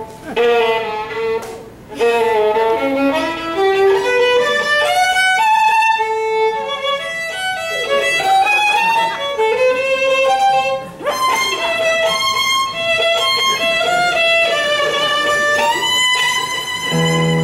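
Solo fiddle playing a tune, note by note, with brief breaks about two seconds in and again midway. It is a deliberate example of poor fiddling, which the player himself calls poor.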